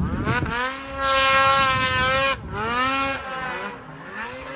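Snowmobile engine revving hard in deep snow. The pitch climbs quickly and holds high for over a second, then cuts off sharply. It revs up again and falls away, with a smaller blip near the end.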